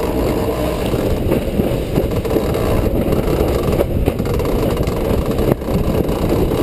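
Steady rush of wind buffeting the microphone and water running along the hull of a sailing yacht under way.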